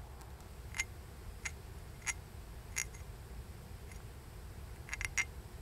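Bone toggle being sanded to a point against a quartz stone: a series of short, sharp clicks of bone on stone, roughly one every two-thirds of a second, with a quick double click about five seconds in.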